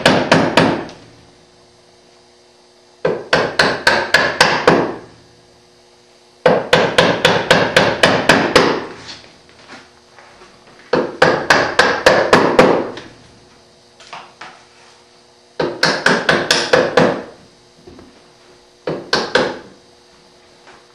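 A wood chisel driven by quick mallet blows, chopping waste from the half-blind dovetail pin sockets in a hardwood drawer front. The blows come in short runs of about four to nine, roughly four a second, with pauses of two to three seconds between runs.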